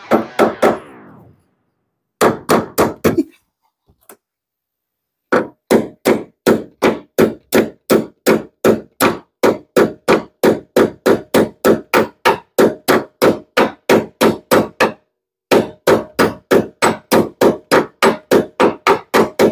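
Small hammer tapping metal on metal, driving a roller pin up into a Chevy S10 door hinge: quick, even taps at about three a second, broken by a few short pauses.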